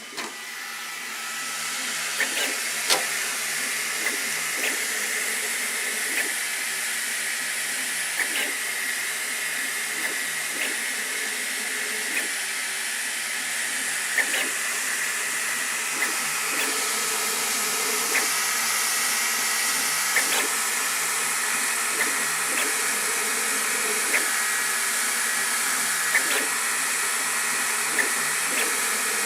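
Sovol SV08 3D printer running a print: a steady fan hiss that swells in over the first couple of seconds, a high motor whine that shifts in pitch partway through, and light clicks every second or two.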